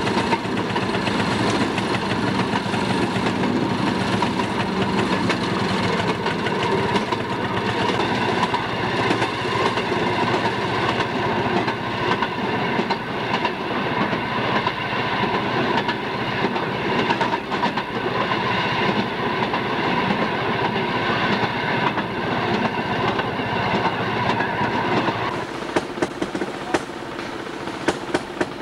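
Railroad motorcar (track speeder) running along the rails, heard from aboard: its engine and steel wheels make a steady clatter with a constant whine. About three seconds before the end it drops to a quieter sound with a few sharp clicks.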